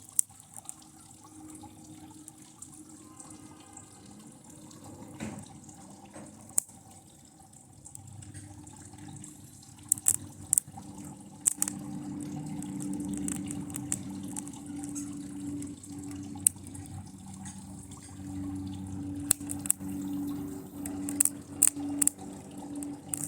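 A TV circuit board being burned with high current from a lead-acid battery: sizzling and crackling with sharp snaps of sparking, thickest about ten seconds in and again near the end, over a low steady hum that grows louder about halfway through.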